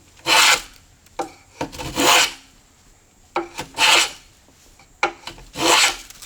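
A Stanley 220 block plane with a slightly curved blade is pushed along the edge grain of a board in four strokes, roughly one every second and a half. Each stroke is a hissing shave that starts with a short tap as the plane meets the wood. The plane is cutting cleanly and taking off curled shavings.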